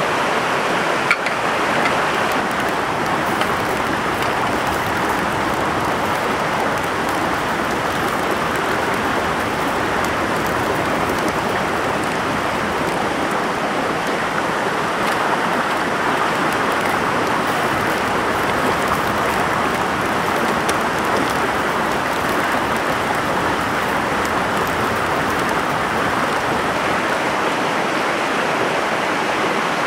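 Stream water flowing and rushing steadily, an even, unbroken wash of sound.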